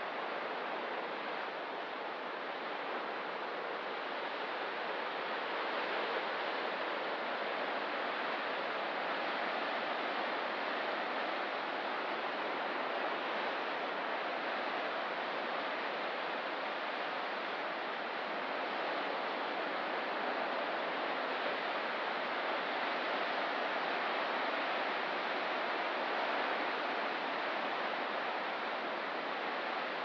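Ocean surf on a rocky coast: a steady, even wash of waves with only gentle swells in level and no distinct crashes.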